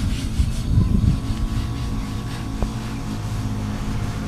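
A steady low engine drone with a faint higher whine over it.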